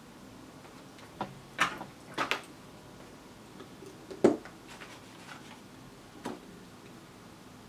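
A handful of short, sharp clicks and taps from small electronic parts and hand tools being handled at a workbench, the loudest about four seconds in.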